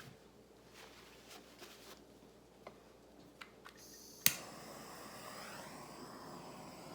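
A few faint small clicks, then a sharp click about four seconds in as a handheld butane torch lights, followed by the torch flame's steady hiss as it plays over wet acrylic paint to bring up cells.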